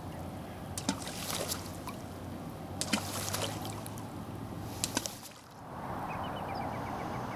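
River water sloshing and trickling around a wading angler's legs, with a few short, sharp clicks. After a brief dip near the end the water noise turns steadier, with a faint, fast ticking over it.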